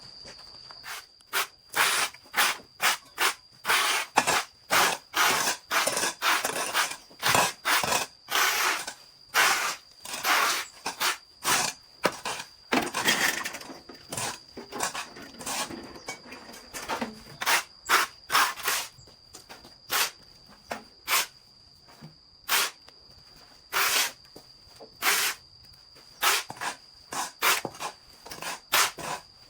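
Repeated short scraping strokes of a hand tool, irregularly spaced at about one or two a second, over a steady thin high-pitched tone.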